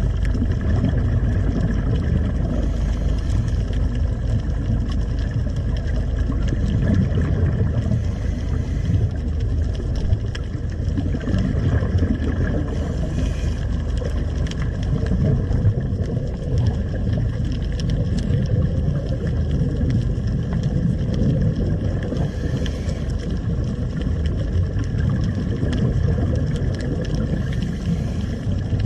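Underwater sound picked up through a camera housing: a steady low rumble with the faint drone of a boat's engine. A diver's exhaled regulator bubbles come every four to five seconds.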